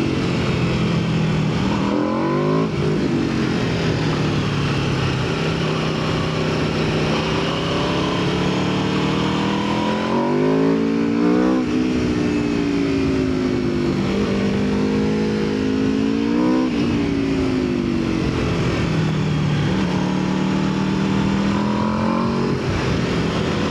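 Aprilia RSV4 superbike's V4 engine being ridden hard through corners: the revs sag slowly, then climb sharply again, four or five times over.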